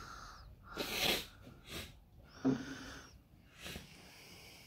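Breathing and sniffing close to the microphone: a few short noisy breaths, the loudest about a second in and midway through.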